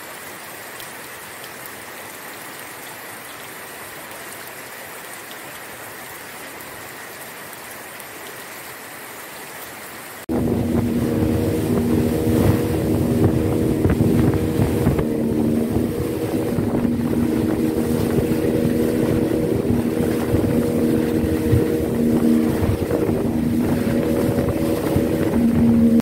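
A small open boat's motor running steadily at speed, with spray off the hull and wind noise. It starts suddenly about ten seconds in, after a quieter, even hiss.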